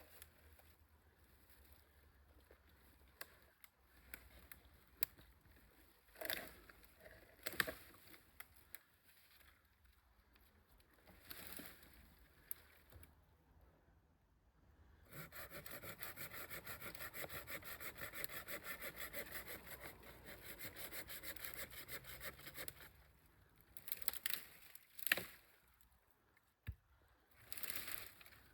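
A hand saw cutting through wood in steady, even strokes, starting about halfway through and running for about eight seconds. Scattered knocks of wood being handled come before and after.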